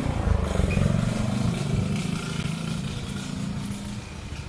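A motorcycle engine running close by, loudest about a second in and fading over the next few seconds.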